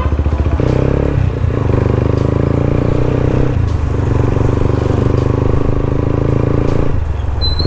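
Motorcycle engine running steadily under way, heard from the rider's seat. The engine note shifts about half a second in and dips briefly about seven seconds in before picking up again.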